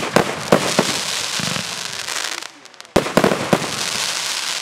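Aerial fireworks shells bursting: a sharp bang at the start and another about three seconds in, each followed by a run of smaller pops and the crackling hiss of glittering stars.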